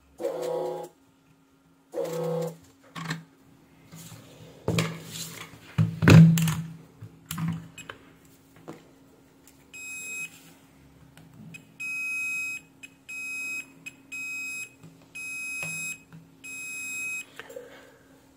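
A Fluke 179 multimeter's continuity beeper sounding in about six high, steady beeps of uneven length as the probes touch the pins of a removed 20N60C3 MOSFET: the MOSFET is short circuit. Before the beeps come scattered clicks and knocks, the loudest about six seconds in.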